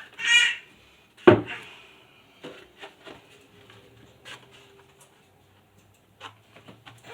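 A short vocal sound at the start, then one sharp knock about a second in, followed by scattered light clicks and handling noises.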